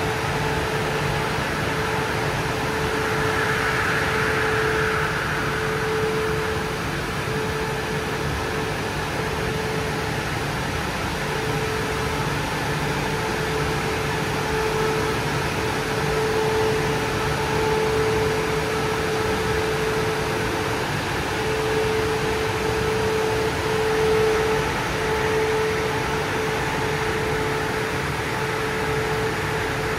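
Dryer blowers of a Christ GENIUS C160 rollover car wash running: a steady rush of air over a low hum, with a whine that wavers and drops out now and then.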